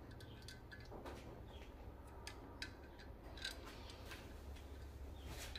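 Faint, irregular light clicks and taps of Edelbrock 1406 carburetor parts being handled as the top cover is lowered and seated onto the body during reassembly.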